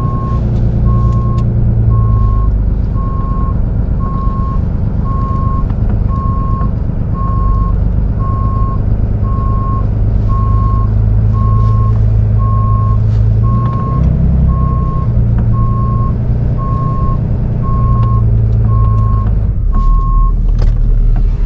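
Tow truck's reversing alarm beeping steadily about once a second over its engine running, as the truck backs up; the beeping stops shortly before the end.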